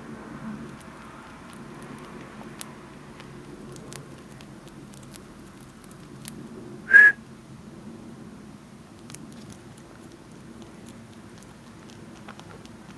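Faint, scattered crunching of a Holland Lop rabbit chewing hay, with one short, loud whistle about seven seconds in.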